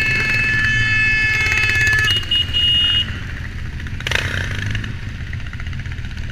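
Motorcycle engines running at low speed in a slow-moving group. A held horn note sounds for the first two seconds, then short higher horn beeps, and there is a brief rush of noise about four seconds in.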